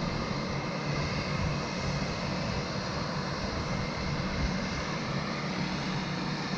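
Light turboprop aircraft engines running steadily, a constant drone with no change in pitch.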